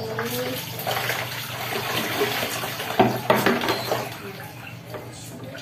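Water poured from a plastic dipper splashing over a small dog being bathed in a bucket, with two sharper splashes about three seconds in; the water sound dies down near the end.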